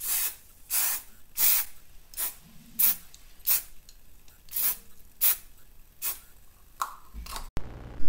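Aerosol can of soldering varnish sprayed onto a copper circuit board in about ten short hissing bursts, a little over one a second, coating the board to protect the copper from oxidation and make it easier to solder.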